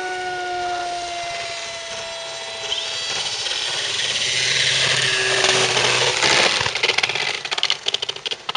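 Radio-controlled model warplane's motor and propeller whining as it is throttled up for a take-off run along concrete, growing louder to its peak about five to six seconds in, then turning choppy and uneven near the end.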